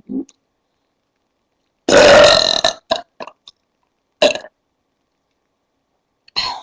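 A woman belching: a short low burp at the start, then one loud, long belch about two seconds in, followed by a few shorter, smaller burps.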